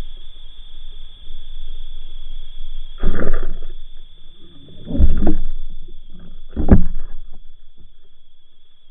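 Muffled underwater sound heard through an action camera's waterproof housing: three heavy thuds about two seconds apart over a low rumble and a steady high whine, as a pike strikes at lures right beside the camera.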